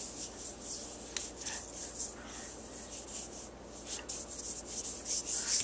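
A child's hand rubbing and wiping across chalk letters on a chalkboard, a soft, hissy rubbing.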